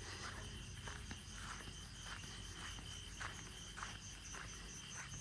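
Insects chirping faintly in a steady, very high-pitched rhythm of about five pulses a second, over a thin steady whine.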